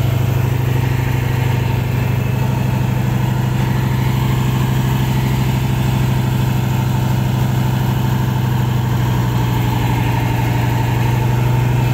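Sand-dredging boat's large engine running steadily, driving the suction pump that draws up sand, with a strong, even low hum.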